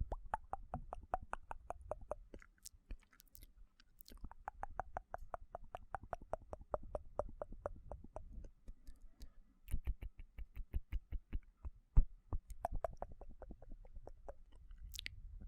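ASMR mouth sounds: fast, wet clicking of tongue and lips, about nine clicks a second, in runs broken by short pauses, with one sharper click about twelve seconds in.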